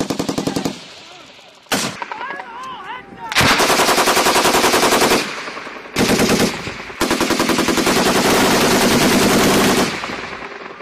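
Automatic machine-gun fire in repeated bursts of rapid, evenly spaced shots. There is a short burst at the start, a burst of nearly two seconds about three seconds in, another about six seconds in, and a long burst of nearly three seconds after it.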